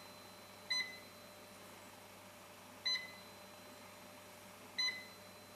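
Three short electronic beeps, about two seconds apart, from the touchscreen control panel of a PCB sawing machine. Each beep confirms a key press as the sawing offset and feed rate are typed in.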